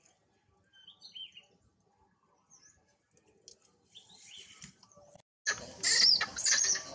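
Macaques screaming, a loud run of high calls that slide down in pitch, beginning about two-thirds of the way in as one monkey chases another. Before that, only faint high squeaks.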